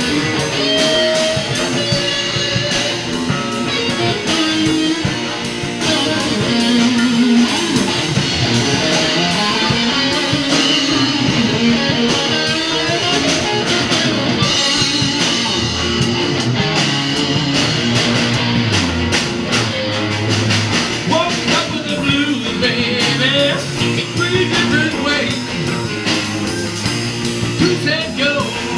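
A rock band playing live and loud: electric guitars over a drum kit, with a singer.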